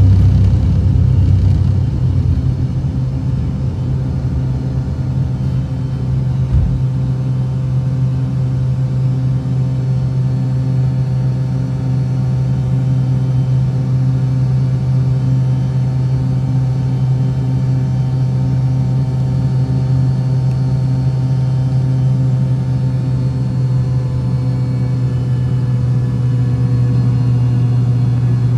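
Engine running with a steady low drone and several held tones above it, a few of which sag slightly in pitch in the later part. There is a low rumble in the first couple of seconds.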